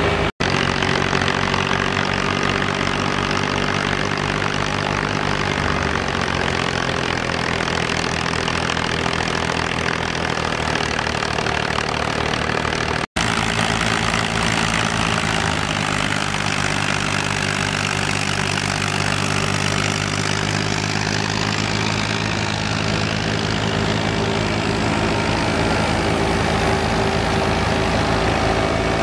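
Al-Ghazi tractor's diesel engine running steadily at working speed, driving a belt-powered wheat thresher whose drum and blower add a constant rushing whir. The sound breaks off for an instant twice.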